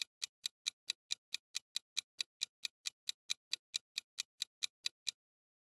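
Ticking clock sound effect of a quiz countdown timer: quick, evenly spaced sharp ticks, about four and a half a second, which stop abruptly about five seconds in.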